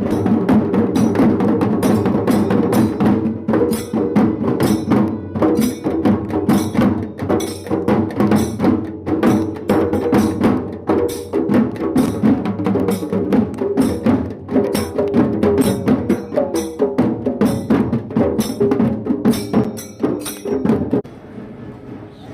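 Percussion-led music with a steady beat of sharp, wood-block-like strikes over sustained pitched tones, cutting off abruptly near the end.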